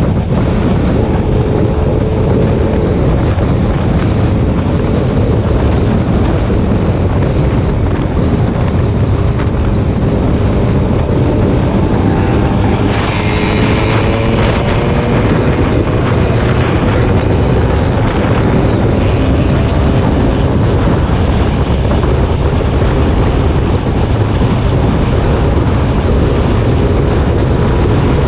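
Road vehicle travelling at speed, with heavy wind buffeting the microphone; a faint engine tone drifts up and down in pitch under the rush.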